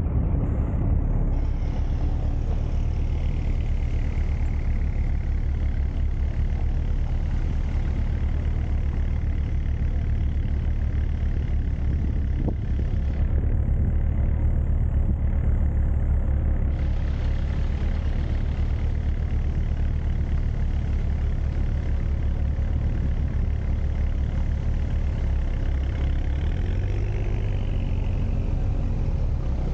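A motor vehicle running steadily, with a constant low engine and road rumble. A few seconds before the end the engine note changes pitch.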